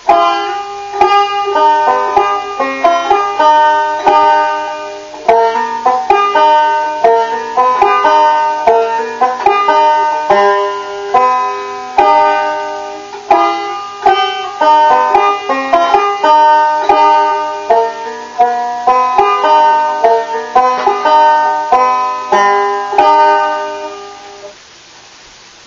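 Banjo picked solo by a beginner, a steady stream of quick plucked notes with a bright twang. It starts just after the opening and rings away to silence shortly before the end.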